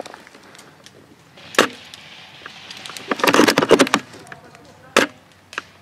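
Airsoft L96 bolt-action sniper rifle firing two sharp shots about three and a half seconds apart, with clattering and rustling between them.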